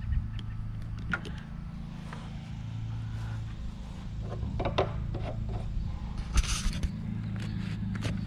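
Scattered clicks and knocks of hands handling a cordless drill and plastic rain barrels, over a steady low hum; a short scrape about six and a half seconds in.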